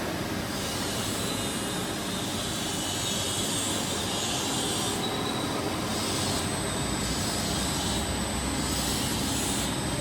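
Table-type horizontal boring and milling machine running: a steady mechanical whir with faint high whines that come and go in the second half.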